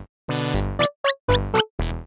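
Electronic background music in short stop-start bursts, with silent gaps between them.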